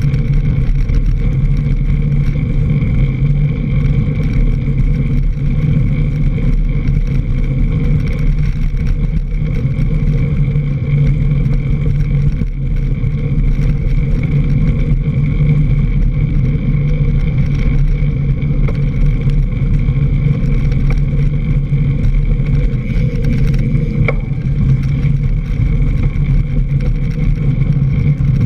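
Mountain bike rolling fast over a dirt and leaf-covered trail, heard through a camera mounted low on the fork: a loud, steady rumble of tyre noise and wind on the camera, with one sharp tick late on.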